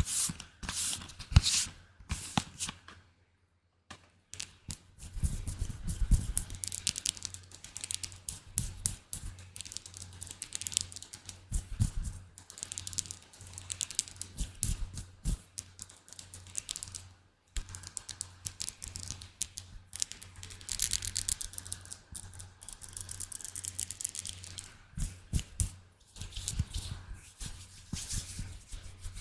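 ASMR triggers close to the microphone: rapid, crisp tapping and scratching on objects, with a brief pause about three seconds in.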